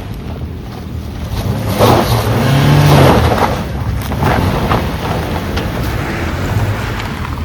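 Off-road 4x4's engine running under load. It revs up about two seconds in, then eases off a second later, with a rush of rough noise alongside.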